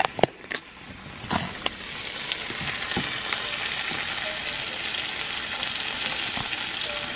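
Sliced bell peppers and onions in jerk seasoning sizzling steadily in a nonstick frying pan over low heat. A few sharp knocks come in the first second and a half, and the sizzle settles in evenly from about two seconds in.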